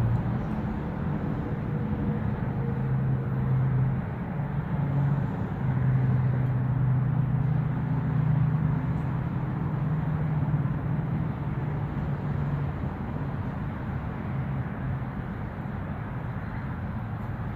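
Steady low mechanical hum over an even background noise, its pitch drifting slightly.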